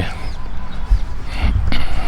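Low rumble of handling noise and wind on a hand-held camcorder's external shotgun microphone while walking, with a few dull knocks about a second in and again near the end.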